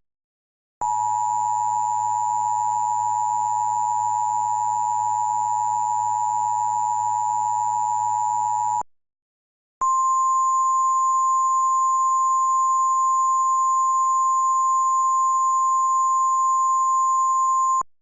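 Emergency Alert System attention signal: the two-tone alert, two steady tones sounded together, holds for about eight seconds and stops abruptly. After about a second's pause, a single steady NOAA Weather Radio warning alarm tone sounds for about eight more seconds, signalling a flash flood warning.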